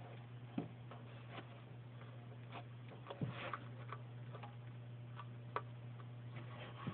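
A bearded dragon chewing carrot: irregular crisp clicks and crunches as its jaws work, over a steady low hum.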